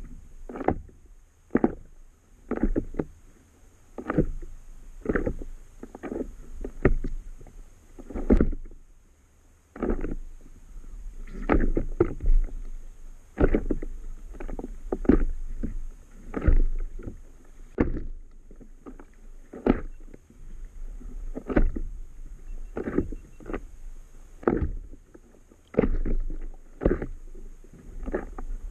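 Small waves slapping against the hull of an inflatable paddle board, irregular knocks roughly once a second over a low rumble of water.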